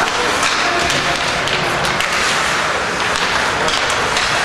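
Ice hockey game in a rink: a steady wash of arena and crowd noise with scattered sharp clicks and taps, typical of sticks, puck and skates on the ice.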